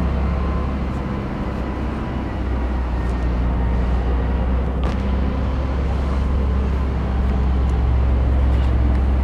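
Cummins GTA28 V12 natural-gas engine of a 500 kW generator set running at a steady speed, a constant low drone.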